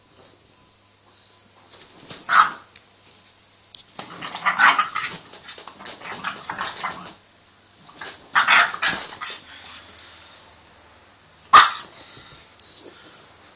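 Five-month-old French Bulldog puppy barking in play. There is a sharp bark about two seconds in, then two longer runs of barking in the middle, and a single sharp bark near the end.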